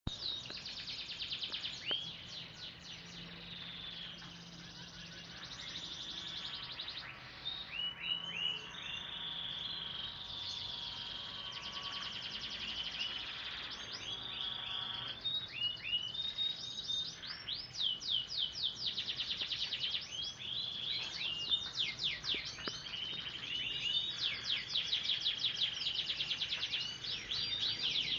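A songbird singing a long, varied run of rapid chirps and fast trills of quick falling notes, busiest in the second half.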